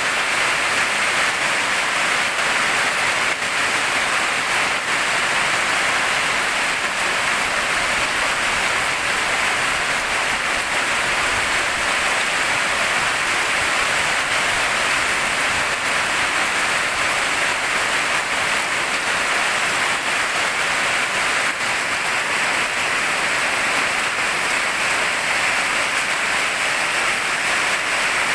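Steady rain falling, an even hiss of drops with no let-up or change in strength.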